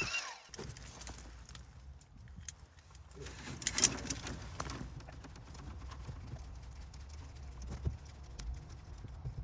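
Scattered light clicks and clinks of metal parts being handled, with a louder clatter about four seconds in.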